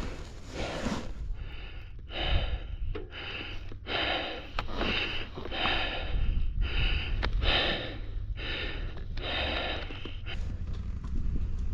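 A person breathing hard and fast, panting about once a second, out of breath from exertion.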